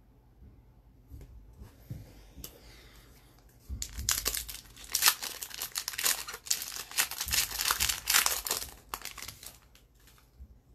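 A hockey card pack's wrapper being torn open and crinkled, with faint rustling at first and a loud, dense crackle from about four seconds in that dies down near the end.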